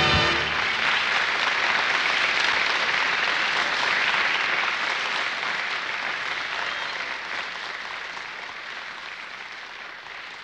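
Audience applause that fades away gradually. The music before it cuts off about half a second in.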